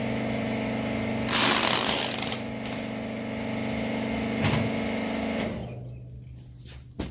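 Rags baler machine running with a steady motor hum, broken about a second in by a loud rush of noise lasting about a second. A knock follows, then the hum dies away as the machine stops, and a sharp click comes near the end.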